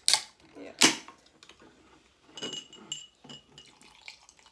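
Aluminium drink cans, a Coca-Cola and a Red Bull, snapping open with two sharp pops within the first second, then a few light clinks of glass and ice from about two and a half seconds in.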